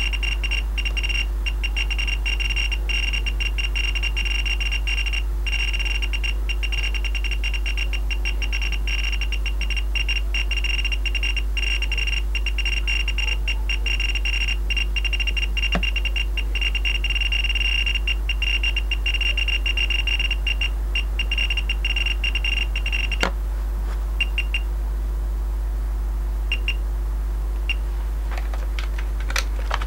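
Pripyat dosimeter's audible count indicator beeping so fast, from the thorium-232 lens's radiation, that the high-pitched beeps run together into an almost continuous tone with brief gaps. About 23 seconds in it stops with a click, and after that only a few separate beeps come as the count rate drops.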